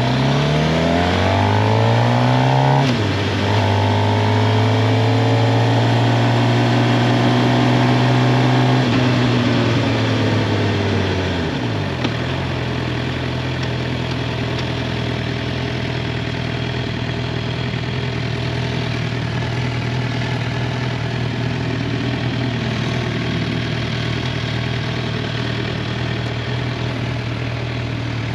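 2023 Suzuki GSX-R 750's inline-four engine accelerating with rising pitch, then shifting up with a drop in pitch about three seconds in. The note holds until the throttle eases off at around nine seconds, falls over the next couple of seconds, and settles into a steady lower hum.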